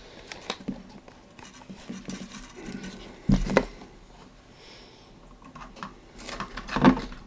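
Small clicks, taps and scrapes of tools and parts being handled on an electronics workbench, with a pair of louder knocks about three and a half seconds in and another near the end.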